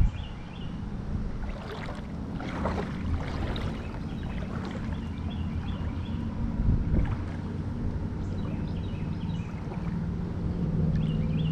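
A steady low engine drone from a distant motor, growing louder near the end, with faint bird chirps in short bursts a few times.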